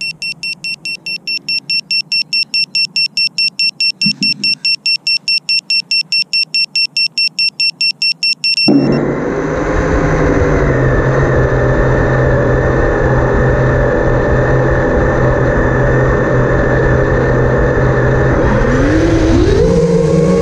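A racing quadcopter's beeper sounds a rapid run of short, high electronic beeps, about three or four a second. About eight and a half seconds in, the beeping stops and the brushless motors spin up to a steady idle whine, the propellers turning on the ground. Near the end the pitch rises as the throttle comes up for takeoff.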